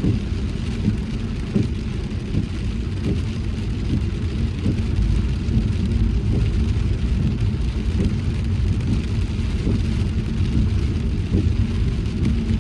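Car driving on a wet road in the rain: a steady low road and engine rumble with an even hiss of rain and wet tyres.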